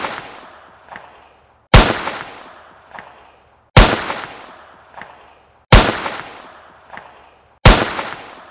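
Loud gunshot-like bangs, one every two seconds, four in all. Each fades slowly, with a fainter echo about a second later. The bangs are identical, so this is a repeated shot sound effect edited over the photos, not live shooting.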